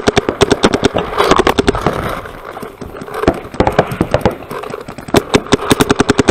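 Paintball markers firing in rapid strings of shots, about ten a second, in several bursts with short pauses between them.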